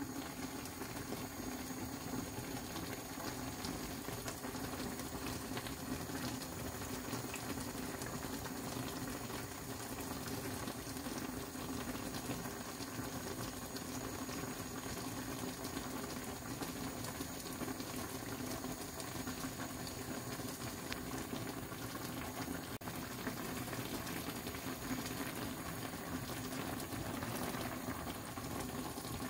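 Coconut-milk red curry with jackfruit and spinach bubbling at a steady simmer in a wok.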